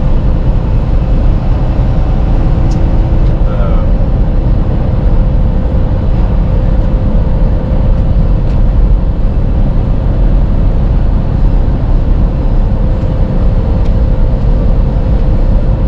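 Semi-truck's diesel engine and tyre noise heard from inside the moving cab: a steady, loud low drone with a thin steady hum running through it.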